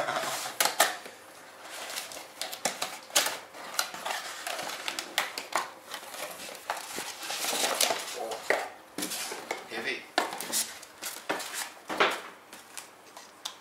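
Cardboard packaging being handled: box flaps scraping and rustling, with frequent sharp clicks and knocks as an aluminium linear-module rail is pulled out of its box and foam insert.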